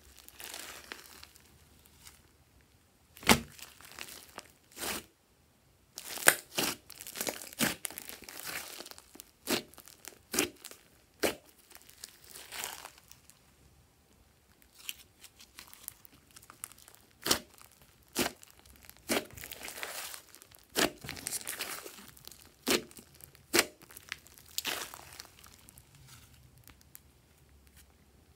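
Hands squeezing, stretching and folding a large glossy slime: irregular sticky squelches and crackles with many sharp clicking pops, broken by a few short quiet pauses.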